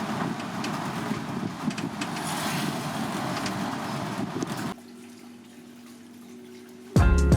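Water rushing and splashing in a steady noisy wash that cuts off suddenly about two-thirds of the way in. A quieter low steady hum follows, and music starts at the very end.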